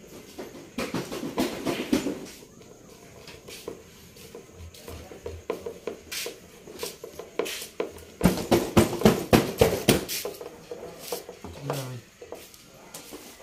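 Hand screwdriver turning screws on the mounting rim of a 12-inch woofer in a speaker cabinet: bursts of quick clicking and scraping as the metal tip works in the screw heads, busiest about a second in and again around eight to ten seconds in.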